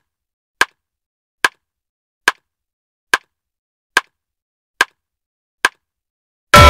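A sharp, dry click, repeated at an even pace a little over once a second against dead silence, like a ticking sound effect. Loud drum-heavy electronic music cuts in abruptly at the very end.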